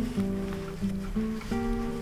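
Instrumental background music: a melody of short held notes that change every few tenths of a second.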